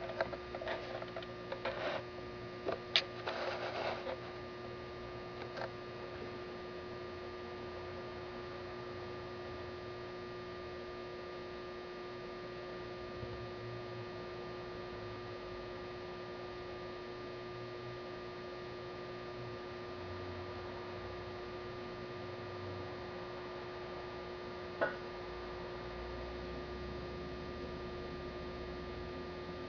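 Steady electrical hum with faint room noise. A few short knocks and rustles come in the first four seconds, and a single click near the end.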